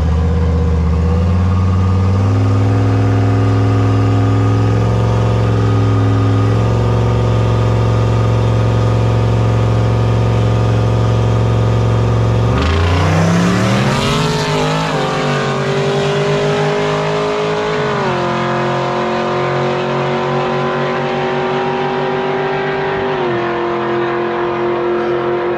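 Two fifth-generation Chevrolet Camaros holding steady raised revs on the start line, then launching about halfway through: the engines accelerate hard with rising pitch, which drops back at each of several gear changes as the cars pull away.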